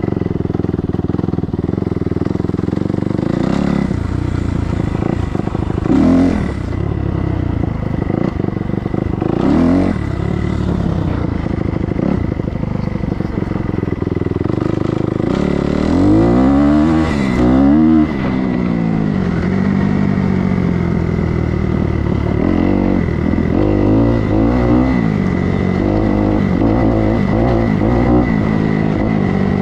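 Kawasaki KX250F four-stroke single-cylinder dirt bike engine running under way off-road, the throttle opened and closed so the engine pitch rises and falls several times, most strongly about halfway through, then runs on with quick small changes in pitch near the end.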